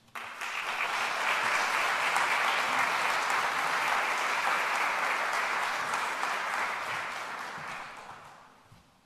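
Audience applauding: the clapping starts at once, holds steady, then dies away over the last few seconds.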